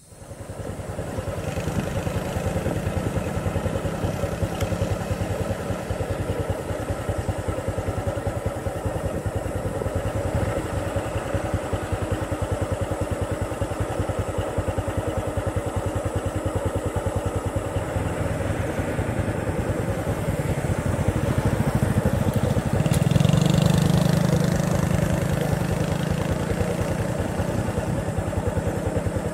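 Motor vehicle engine idling close by, a steady rapid pulsing, growing louder for a couple of seconds about two-thirds of the way through.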